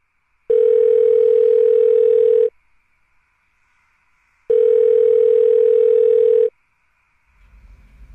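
Telephone ringback tone: a steady two-second ring, then a two-second gap, then a second two-second ring, as an outgoing call rings out unanswered.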